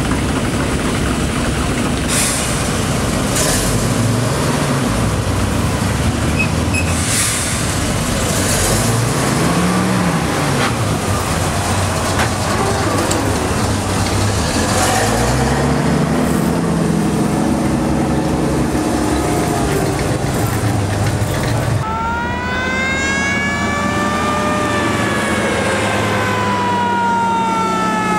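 M26 Dragon Wagon's 18-litre Hall-Scott six-cylinder engine being revved up and dropped back several times while the truck stands, with a few short hisses. Then the truck drives past, its engine and drivetrain whine rising and then falling in pitch as it goes by.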